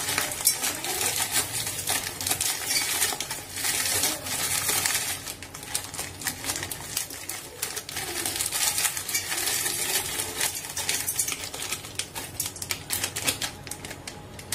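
Plastic Oreo biscuit packets crinkling as the biscuits are squeezed out one by one, with quick clicks and light knocks as they drop into a steel mixer-grinder jar.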